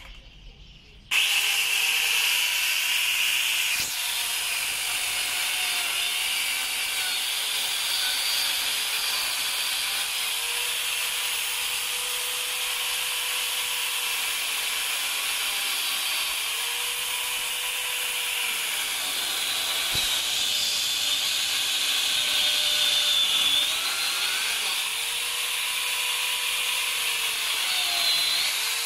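Corded 4-inch angle grinder fitted with a chainsaw bar and chain, switched on about a second in and running with a steady high whine as it cuts into a tree trunk. Its pitch dips briefly several times as the chain loads up in the wood.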